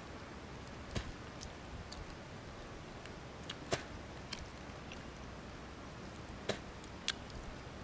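Eating sounds of a person picking apart and chewing grilled fish by hand: about six short, sharp clicks and smacks, scattered and irregular, the loudest a little past halfway, over a faint steady hiss.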